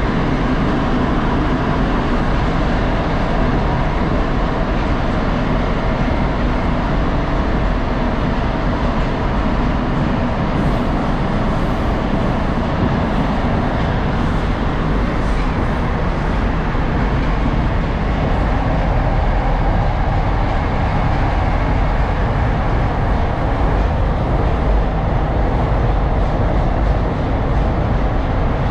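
Steady running noise inside a moving 81-760/761 'Oka' metro car: wheels on the rails and the train's running gear.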